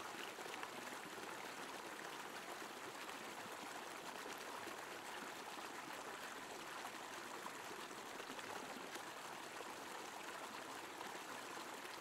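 Stream water rushing over boulders in a fast current, a steady, fairly faint rush of white water.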